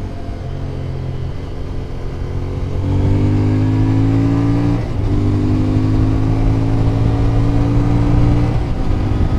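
Motorcycle engine pulling under acceleration, heard through a helmet-mounted boom mic. It gets louder about three seconds in and rises steadily in pitch, with two brief breaks where the pitch drops, near the middle and near the end: upshifts.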